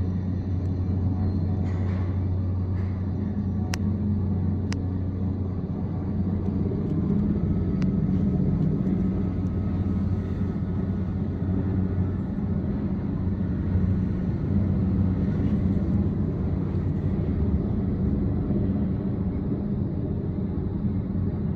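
Heavy-lift helicopter flying with a load slung on a long cable, heard as a steady low rotor and engine rumble.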